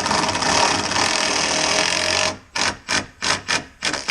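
A saw cutting through a treated 2x4. The cutting is steady for about two seconds, then breaks into a run of short separate strokes, about three a second.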